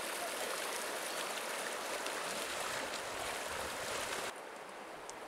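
Fast, shallow river water rushing and splashing around the legs of people wading across it. The water noise drops suddenly to a quieter level about four seconds in.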